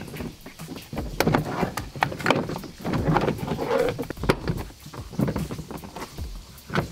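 Moulded plastic rear quarter trim panel of a Toyota Land Cruiser 200 Series being handled and pushed back into place, giving irregular knocks, clicks and scuffs of hard plastic.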